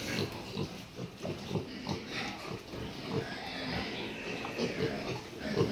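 A sow and her young piglets grunting: a quick series of short low grunts, several a second, mixed with higher piglet squeaks.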